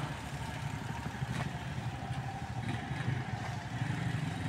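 Car engine running at low speed during a slow driving manoeuvre: a steady low rumble, with a faint click about one and a half seconds in.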